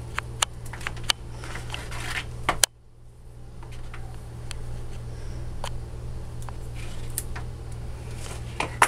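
Handling sounds of wire and small parts being moved on a workbench: scattered light clicks and rustles over a steady low hum. A sharp click comes about two and a half seconds in, and the sound then drops away briefly before building back up.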